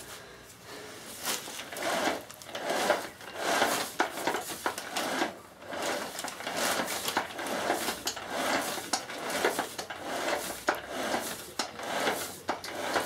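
Clear plastic bag or sheet crinkling and rustling in irregular handfuls as hands work inside it around a VW Beetle gearbox casing, with a few light knocks.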